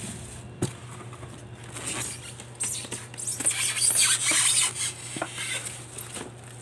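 Plastic bag around a boxed waffle maker crinkling and rustling as it is handled and pulled out of its cardboard box, with a few light knocks of foam packing and cardboard in the first second or so. The rustling is loudest a little past the middle.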